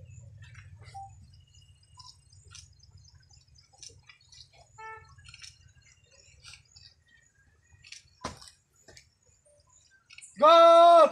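A hushed gathering with faint scattered clicks and a low rumble that fades out. Near the end, one loud drawn-out shouted drill command.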